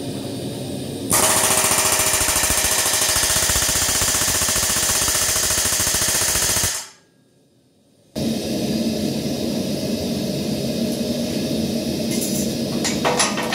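Pneumatic rivet hammer driving a hot steel rivet: a loud, very rapid continuous hammering that starts about a second in and runs for about five and a half seconds before cutting off abruptly. After a moment of near silence comes a steady machine noise, with a few sharp metal knocks near the end.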